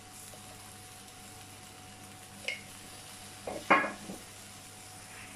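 Potato pieces frying gently in oil in a pressure cooker pan on a gas stove, a faint steady sizzle, with a light click about two and a half seconds in and a brief cluster of metal clinks against the pan about a second later.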